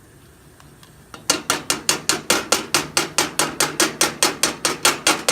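Rapid, even knocking against a cooking pot, about five strikes a second, starting about a second in and going on for more than four seconds, as the gravy is stirred in or the container is tapped on it.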